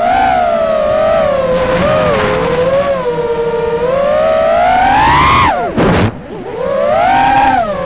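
Brushless motors and 6-inch propellers of an Armattan Rooster FPV quadcopter, heard from its onboard camera, whining loudly with a pitch that wavers with the throttle. About five seconds in, the whine rises, then drops sharply almost to nothing as the throttle is cut in a dive. A second later it spools back up.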